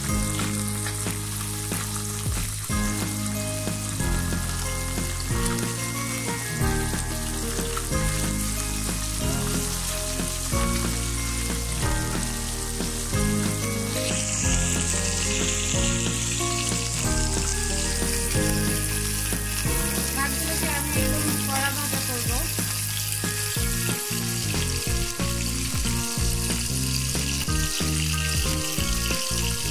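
Whole sand goby fish, coated in turmeric and spice, frying in hot oil in a wok: a continuous sizzle of bubbling oil that grows brighter about halfway through.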